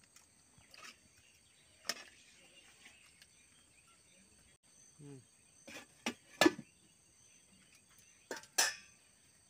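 Scattered metal knocks and clanks of cookware: a spatula against a steel kadai, then an aluminium lid set onto it, with the loudest clank about two-thirds of the way through and a few more knocks near the end.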